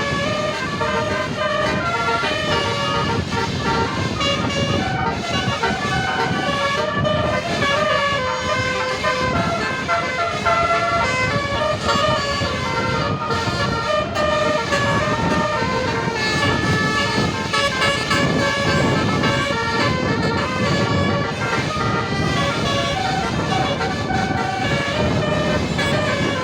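Basuri telolet bus horn playing a tune: a run of steady horn notes stepping from pitch to pitch one after another without a break.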